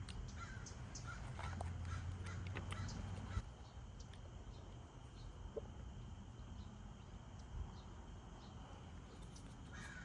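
Birds calling in short scattered calls, with a low steady hum that stops suddenly about three and a half seconds in.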